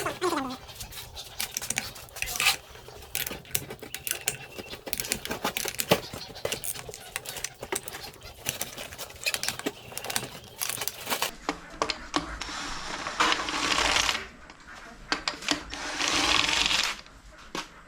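Tools and metal engine parts clinking and knocking during engine disassembly. Two runs of a power tool, each a couple of seconds long, follow in the last third.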